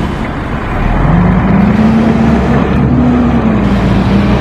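A bus running on the road close by: a steady low engine drone that comes up loud about a second in and holds.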